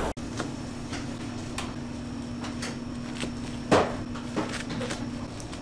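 Bakery work noises: scattered light clicks and knocks of things being handled, with one louder clack a little before four seconds in and another shortly after, over a steady hum.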